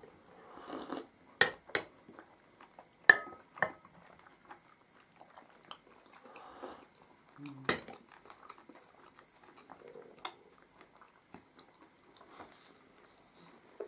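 Tea being sipped with a slurp from a glass mug twice, chewing of puff pastry, and several sharp clinks of crockery and cutlery; the clinks are the loudest sounds.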